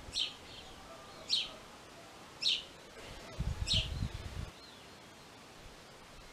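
A bird calling outdoors: a short, high chirp repeated four times, about once a second. A low rumble about three and a half seconds in lasts roughly a second.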